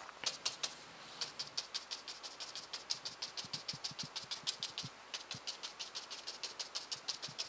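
Paint being pounced through a stencil onto paper: a fast, even run of dabbing taps, about five or six a second.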